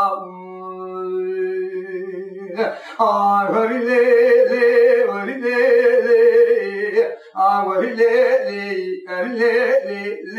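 Kurdish dengbêj singing: a man's solo voice holds one long steady note, then, about three seconds in, moves into ornamented, bending sung phrases broken by short breaths.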